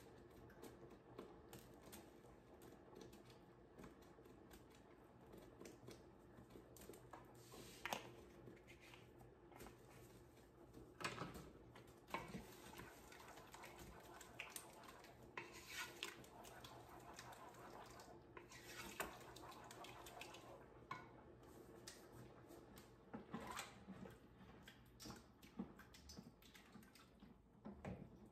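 Faint scattered clinks, knocks and scrapes of spoons against cooking pots while sauce is stirred, over a low steady hum.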